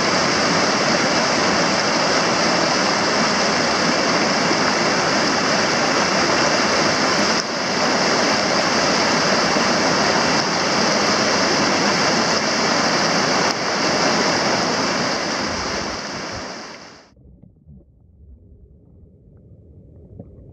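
Whitewater rapids rushing loudly and steadily. About 17 seconds in the rush cuts off abruptly, leaving faint muffled low gurgles and rumbles heard underwater.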